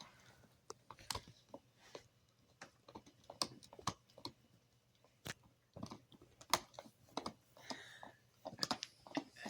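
A dog gnawing on a hard chew: irregular sharp clicks and crunches of teeth working the chew.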